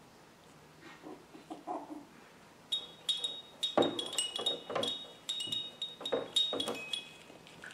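A small bell inside a hanging plush baby toy jingling in quick, repeated tinkles as two puppies wrestle against it, starting about three seconds in. Soft thumps and scuffles of the puppies tussling on the pad come with it.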